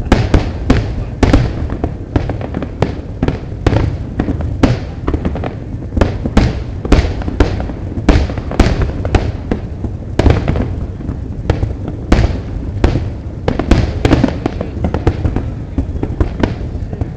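Fireworks exploding in rapid, irregular succession, several sharp bangs a second over a continuous low rumble.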